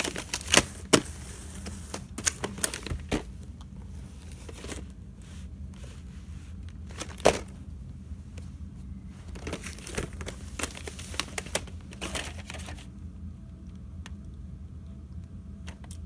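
Plastic VHS clamshell case and cassette being handled: an irregular string of clicks and knocks as the case is opened and moved and the tape is lifted out, with one sharper knock about seven seconds in.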